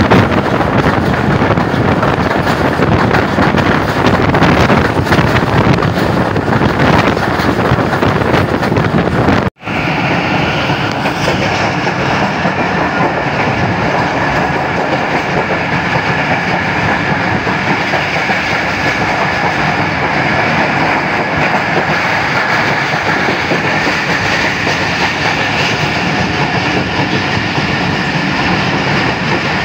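Karachi Express passenger train running, with the wheels clattering over the rail joints and the coach rumbling, heard at an open coach door. About ten seconds in, the sound cuts out for an instant and comes back with a steady high-pitched whine over the running noise.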